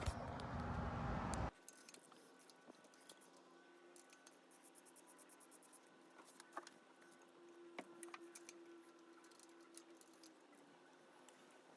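An even noise that cuts off suddenly about a second and a half in, then faint, scattered clicks and light metallic taps of hand tools and engine parts being handled.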